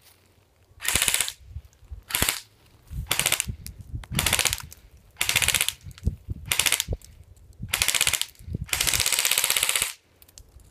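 Lancer Tactical M4 CQBR airsoft AEG, a battery-driven electric gearbox gun, firing on full auto in about eight short bursts of rapid clatter. The last burst runs about a second.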